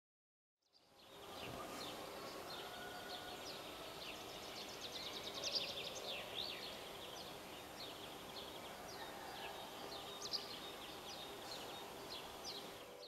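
Outdoor ambience that fades in about a second in: a steady background hiss with many birds chirping, short quick calls repeating throughout.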